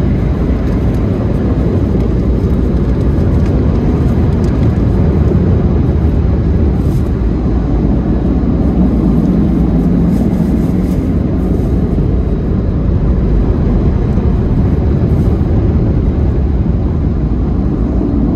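Automatic tunnel car wash machinery heard from inside the car's cabin: a steady, loud, deep rumbling roar.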